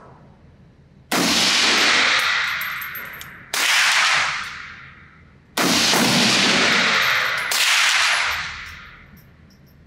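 Four shots from a Nemo Arms Battle Light Rifle, an AR-15-style rifle in 6mm ARC, fired about two seconds apart, each a sharp crack followed by a long echoing decay in an indoor range. Light metallic clinks follow the first and third shots.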